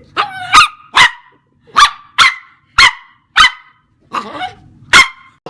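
A dog barking: about eight short, sharp barks in an uneven series.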